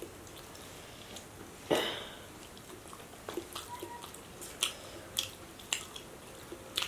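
Quiet close-up eating sounds of people eating fried fish and boiled eggs by hand: scattered small clicks and smacks of chewing and fingers picking at food, with one louder smack about a second and a half in.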